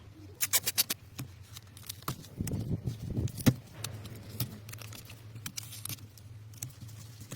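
Buttons on a Mercedes steering wheel being pressed: a quick run of clicks in the first second, more clicks and small knocks from about two to three and a half seconds in, over a steady low hum.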